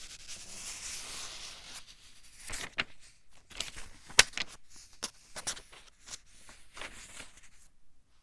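Pages of a thin-paper book being turned: a soft sliding rustle, then a run of crisp paper crackles and snaps as the sheets flip over, the sharpest about four seconds in.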